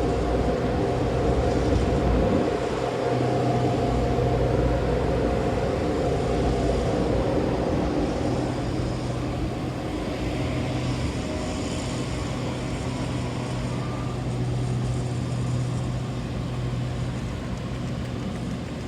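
Train running at the station: a steady low hum with a louder, higher drone that fades away over the first several seconds, the overall sound slowly easing off.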